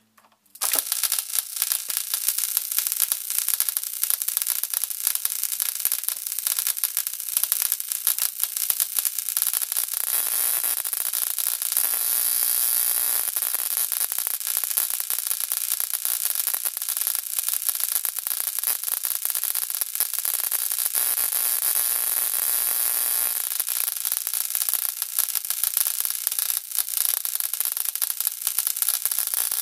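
High-voltage arc from an ignition coil, jumping between two copper wire electrodes, with the coil driven from the mains through a 4.7 microfarad current-limiting capacitor. It switches on suddenly about half a second in and keeps up a steady crackling buzz.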